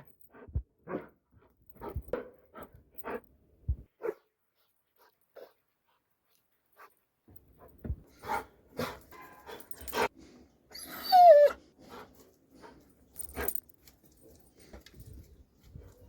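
Doberman giving a string of short barks, then after a pause of a few seconds more barks and a loud whine that falls in pitch about eleven seconds in.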